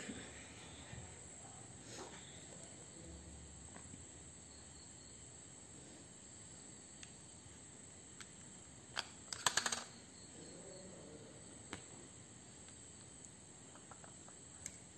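Light plastic clicks from a Canon Speedlite 600EX II-RT flash being handled, its battery compartment opened and AA batteries loaded, with a quick cluster of clicks a little past halfway and single clicks near the end. A faint steady high-pitched chirring runs underneath.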